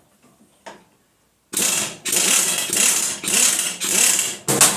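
A socket tool tightening the bolt that holds a rotary mower blade. About a second and a half in it starts a run of about five loud, rapid rattling bursts, each about half a second long.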